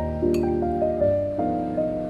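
Background music: a slow keyboard melody, one held note after another over sustained lower chords.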